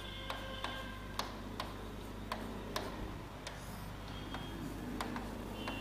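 Faint ticking, about two clicks a second and not quite evenly spaced, over a steady low electrical hum.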